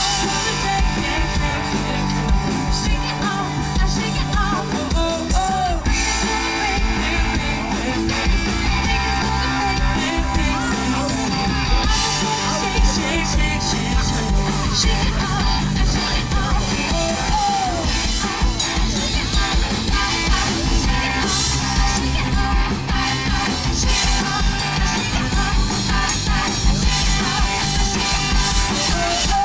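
Live band playing rock music, loud and continuous, with some singing.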